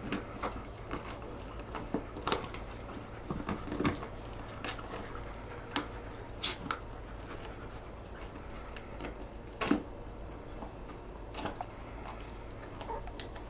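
Dogs playing over a plastic frisbee: irregular clicks and knocks of teeth and paws on the toy, the loudest a little before ten seconds in.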